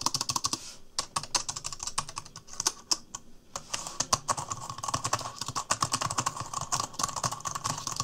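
Fast typing on an Omoton ultra-slim Bluetooth keyboard: a dense, uneven run of light clicks from its low-profile chiclet keys, with brief lulls about a second in and again around three and a half seconds.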